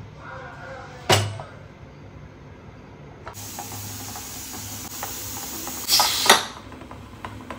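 Stovetop pressure cooker on a gas burner. There is a knock about a second in, then steam hisses steadily from the open vent. The hiss stops suddenly, with a metallic clatter, when the whistle weight is set on the vent.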